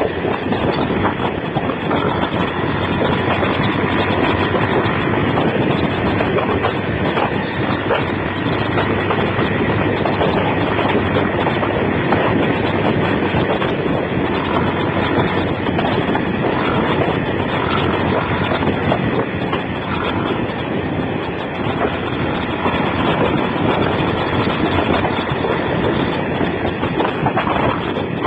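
Steady rush of wind and a motorcycle engine running at road speed, picked up by a mobile phone's microphone on the moving bike.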